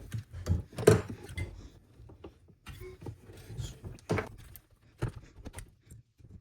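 Pliers squeezing a plastic strain relief bushing onto a power cord and working it into a metal amp chassis: irregular clicks, knocks and handling noise, the loudest about a second in.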